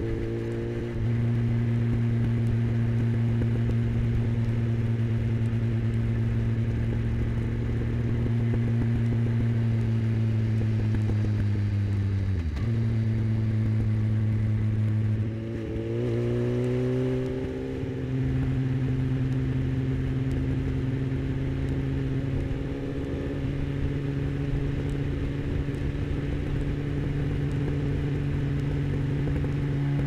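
2009 Honda CBF1000's inline-four engine running steadily under way, with wind noise over the helmet-mounted camera. The engine note dips sharply about twelve seconds in, climbs again around sixteen seconds, and settles at a slightly higher pitch.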